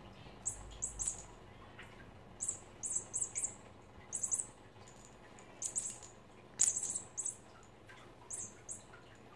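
High-pitched bird-like chirps in quick clusters of two to four, recurring every second or two, the loudest cluster about two-thirds of the way through.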